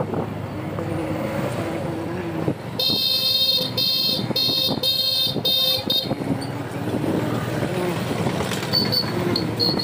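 Vehicle horn honked in five short beeps, about two a second, over steady street traffic noise. A thin high steady tone comes in near the end.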